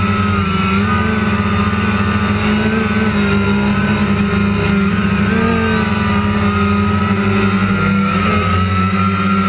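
Multirotor drone's electric motors and propellers whining steadily, as picked up by the camera on board. The pitch wavers up and down as the motors adjust speed in flight.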